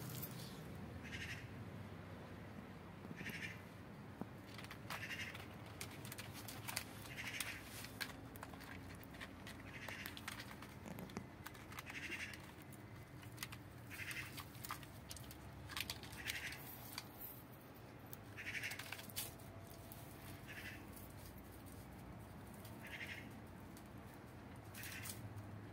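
Kitten mewing over and over, short high cries about every two seconds, with scattered light clicks and rustles.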